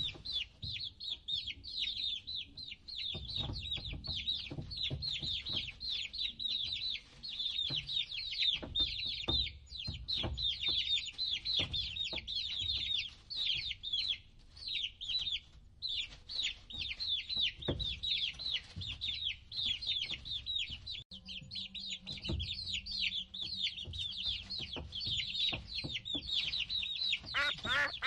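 A group of baby chicks peeping continuously, many rapid high cheeps that slide downward in pitch and overlap one another. Soft low thumps are scattered underneath.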